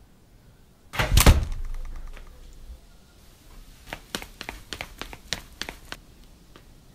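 A heavy thud about a second in that rings off over about a second, followed by a run of light, sharp clicks and taps.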